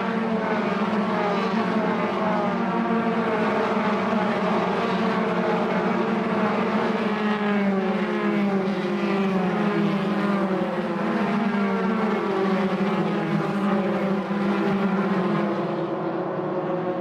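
A pack of Formula 3 single-seater race cars accelerating hard on the opening lap, several engines overlapping, each climbing in pitch and dropping back at every upshift, over and over.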